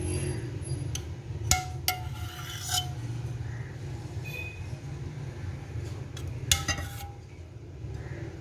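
Metal spoon clinking against a glass bowl and the custard container while thick custard is scooped and spread over cake slices. A few sharp clinks come around two seconds in and a cluster comes again about six and a half seconds in, over a steady low background hum.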